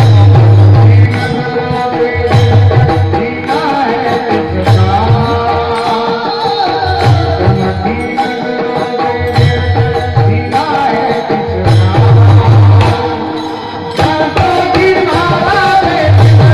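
Live bhajan music: a mridang (two-headed barrel drum) playing deep bass strokes in rhythm, with sharp cymbal-like strikes keeping time and a melody over a steady held drone.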